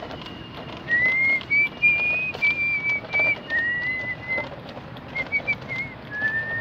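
A person whistling a tune: a string of clear, high held notes with small slides in pitch, starting about a second in, over a steady background hiss.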